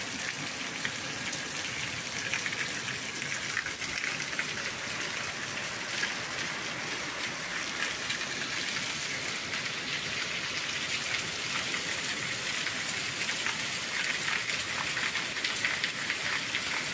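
Steady rain falling: an even hiss with a fine patter of drops.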